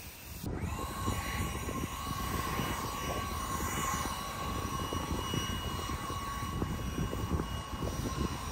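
Red cordless electric leaf blower running with a steady whine, starting about half a second in, blowing the freshly washed foam roof dry at the mount spots.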